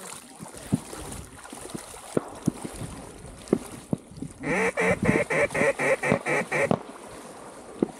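A quick, even run of about eight loud duck quacks in the pattern of a mallard hen's greeting call, starting about four and a half seconds in. Light scattered knocks sound around it.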